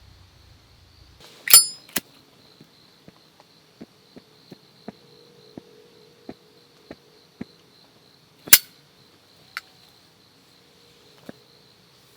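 Insects chirring steadily on an autumn night, a continuous high, thin trill. Two loud sharp clicks, one near the start and one about two-thirds through, with a run of light ticks about twice a second between them.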